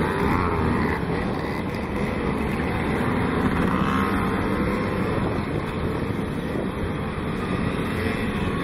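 A pack of NSU Quickly mopeds' small two-stroke engines running together as the riders pull away, a steady dense buzz.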